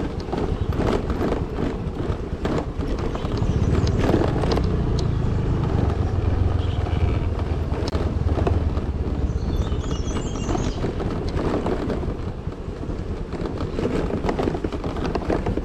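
Scooter engine running while the machine jolts over a rough dirt road, with frequent knocks and rattles. The engine hum grows stronger from a few seconds in until about two-thirds of the way through.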